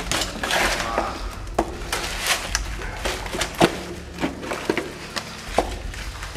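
Boots stepping and scuffing over loose rubble and broken concrete, with irregular knocks and thuds; the loudest knock is about three and a half seconds in.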